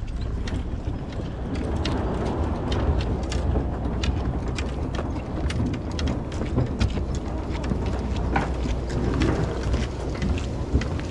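Footsteps and gear knocking and clicking while walking along a boat dock, over a steady low rumble from a moored boat's idling engine.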